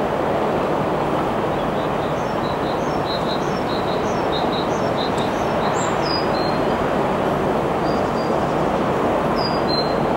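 A steady rushing rumble with a low hum under it, and small birds chirping over it again and again in short high notes.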